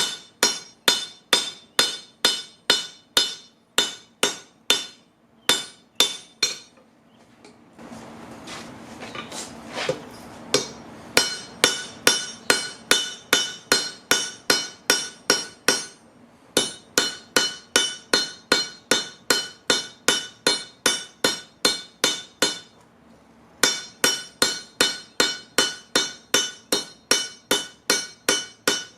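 Hammer blows on a railroad-track anvil, about two to three a second, each with a bright metallic ring. The hammering stops for a few seconds about seven seconds in while a rushing noise rises and fades, then resumes, with another short pause near the end.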